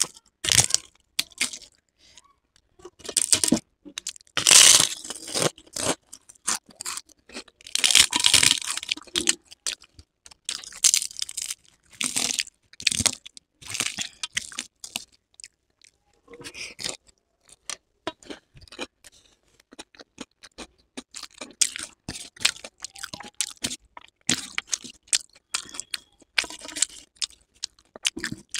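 Crisp papad crackling as it is broken and crumbled by hand over a plate of rice, mixed with crunchy chewing. The sound comes as irregular crisp crackles, with two denser bursts of crumbling in the first third.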